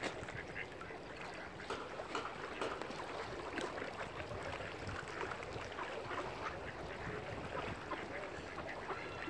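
Mallard ducks quacking, many short calls in quick succession over steady background noise, with a brief higher pitched call near the end.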